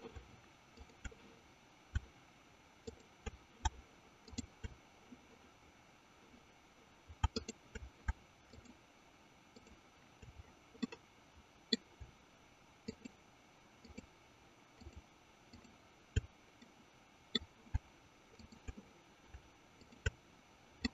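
Computer mouse clicking: about twenty faint single clicks spread irregularly, some a second or more apart and some in quick pairs, as bones are picked one by one.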